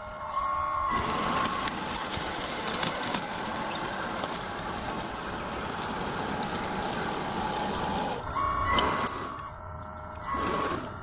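Machine noise: a steady whine comes and goes, and for most of the stretch is overlaid by a dense clattering noise with sharp clicks. The level changes abruptly a few times.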